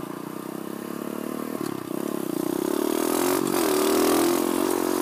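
Pit bike engine running as the bike rides across the intersection. It grows louder about two seconds in as it accelerates, and its pitch dips and climbs again around three and a half seconds in.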